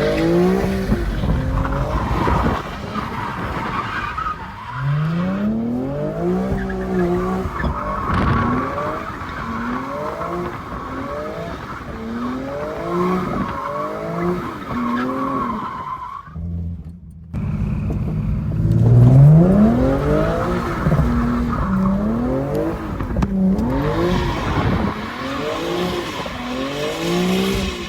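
Infiniti G37's V6 engine revving hard, its pitch climbing and falling again and again, with the rear tyres squealing while drifting. The sound drops out briefly a little past halfway, then the revving and squealing resume.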